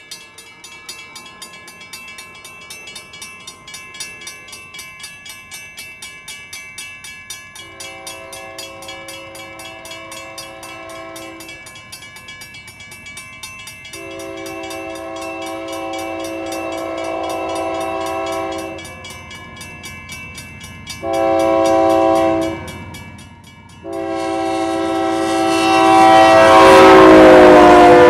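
A railroad grade-crossing bell rings in a steady rapid beat while an approaching Union Pacific freight locomotive sounds its horn in the grade-crossing pattern: two long blasts, a short one, then a long one. The last blast is held as the locomotive reaches the crossing, and the train noise swells loudly as the horn's pitch drops when it passes, near the end.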